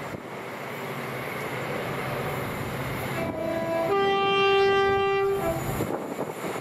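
Approaching train running through, its rumble growing louder, as the driver sounds a two-tone horn about three seconds in: a short low note, a longer higher note, then a brief low note again.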